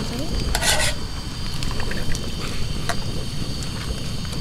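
Portable gas canister stove burner rushing steadily under a pot of hot water, with tongs clicking against the pot and one short scraping rattle about half a second in.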